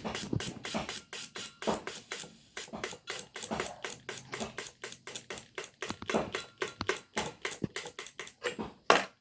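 Mazda 3 fuel injector clicking rapidly as it is pulsed with 12 volts on a bench test rig, about six clicks a second, with one louder click near the end.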